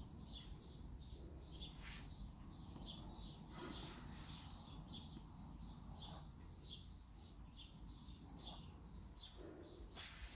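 Faint birds chirping in the background, with a few soft taps.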